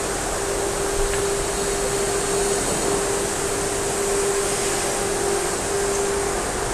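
A fan-type machine running steadily: an even whooshing noise with a constant hum note, and a brief click about a second in.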